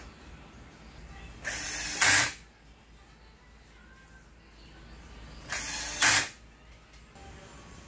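Cordless drill-driver driving screws into a printer's side panel: two short runs about four seconds apart, each ending in a brief louder burst.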